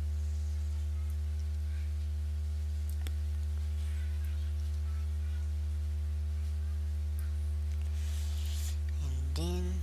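Steady low electrical mains hum in the recording, with a faint buzz of higher steady tones stacked above it. There is a faint single click about three seconds in.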